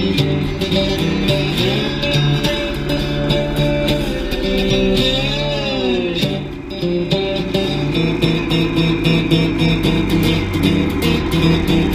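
Background music led by guitar, with a steady beat of plucked notes and a pitch bend about five seconds in.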